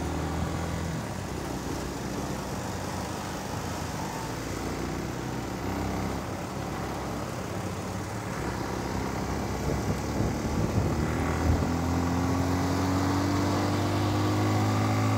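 Motorcycle engine running under way with road noise, picking up speed in the last few seconds, its pitch rising and the sound growing louder as it accelerates.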